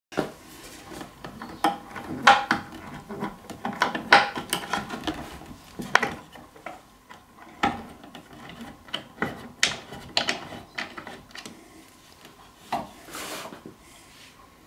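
T-handle Allen key turning bolts into the threaded metal inserts of a wooden chair base: irregular clicks and knocks of metal on metal and wood, with softer handling noise between.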